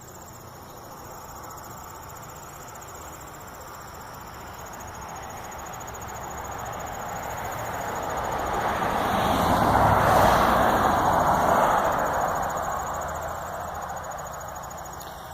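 A vehicle passing on a nearby road: its tyre and engine noise swells to a peak about ten seconds in, then fades away. Insects trill steadily throughout.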